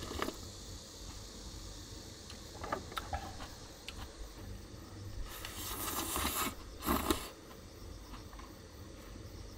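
Ramen noodles slurped from a metal pot: a long slurp from about five to six and a half seconds in, then a shorter one just after, with a few light clicks of chopsticks against the pot earlier on.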